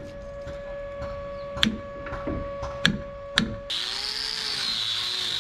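Four sharp hammer blows on a chisel in wood, then a small handheld power tool starts about three and a half seconds in and runs steadily with a high, slightly wavering whine.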